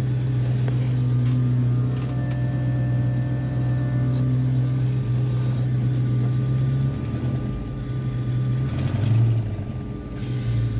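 Electric fuel pump in a 1965 Ford Mustang humming steadily, heard through newly fitted floor insulation meant to quiet it. The hum wavers and dips about seven seconds in.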